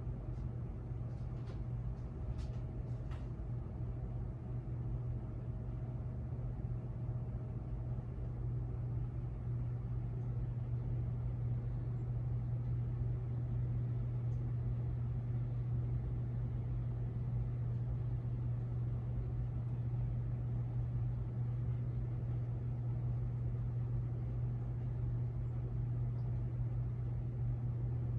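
A 1992 Kmart Atlantic Air ceiling fan running on its low speed with a steady motor hum, getting a little louder over the first several seconds as it spins up. A few light clicks fall in the first few seconds.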